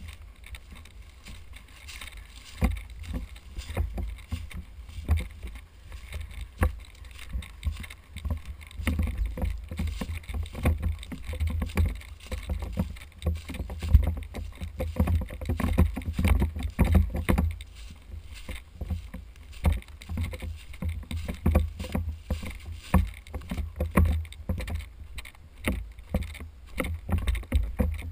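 Footsteps crunching through dry grass and leaf litter, with the rustle of clothing and gear and a low rumble of a body-worn camera being jostled. The steps get louder and quicker about a third of the way in.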